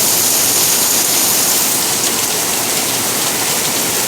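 Heavy thunderstorm rain pouring down steadily in a dense, even hiss.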